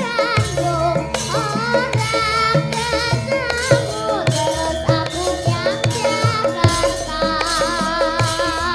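A young girl's solo voice singing with wavering vibrato, backed by a Javanese gamelan ensemble with regular hand-drum strokes.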